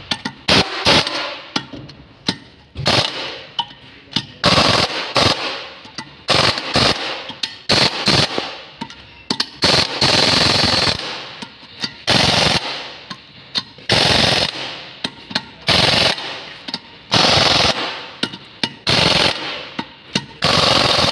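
Pneumatic impact wrench running the bolts that fasten a brake disc to a truck wheel hub. It goes in repeated rattling bursts, each a second or less, with short pauses as the wrench moves from bolt to bolt.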